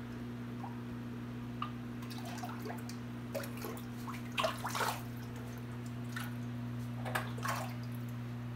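Small splashes and drips at the surface of an aquarium as krill is dropped in and cichlids snap it up, over a steady low hum.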